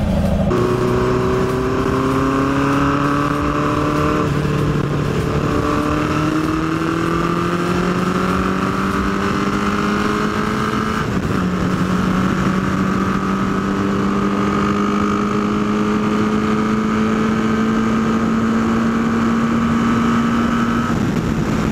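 A 1981 Honda CB750's inline-four engine, fitted with pod air filters, pulling hard at high revs through the gears on a top-speed run. Its pitch rises steadily in each gear, with an upshift about four seconds in and another about eleven seconds in, then a long slow climb in top gear.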